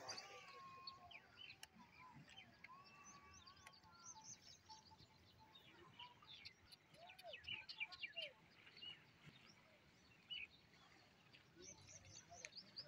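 Faint birdsong: many short chirps and twitters from several small birds, with a few longer whistled notes in the first few seconds.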